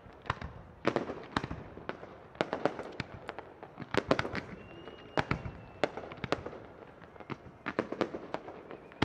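Aerial firework shells bursting in an irregular run of sharp bangs, sometimes several in quick succession, with crackling between them.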